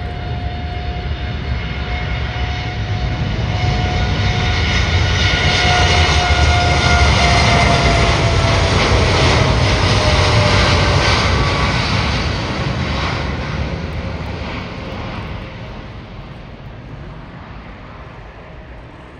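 Boeing 787-8 jet airliner on its takeoff roll at takeoff thrust: the engine noise swells as it runs past, its whine drops in pitch as it goes by, and then the sound fades as it lifts off.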